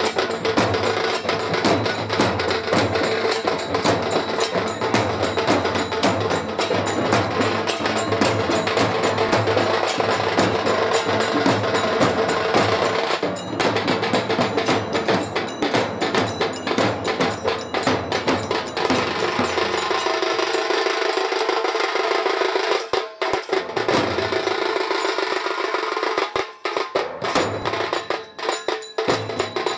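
Dhol-tasha style drumming: large two-headed barrel dhol drums played together in a fast, dense rhythm with a steady stream of sharp, high stick strokes. About twenty seconds in the deep dhol beats drop out for several seconds while the sharp strokes carry on, and the deep beats come back near the end.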